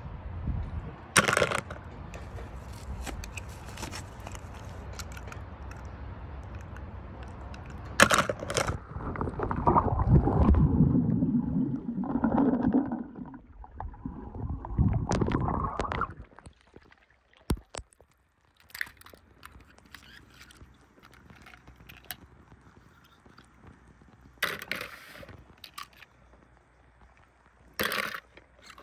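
Swimming-pool water sloshing and splashing as a small die-cast toy car is dipped and moved through it, loudest in the middle. Sharp clacks come from handling the toys, and toy cars clatter into a plastic tub near the end.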